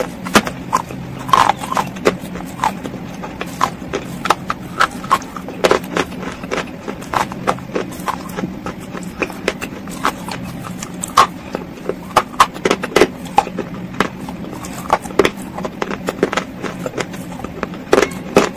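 Close-miked crunching and chewing of a hard, brittle clay chunk coated in creamy paste: irregular sharp cracks and crackles several times a second, over a steady low hum.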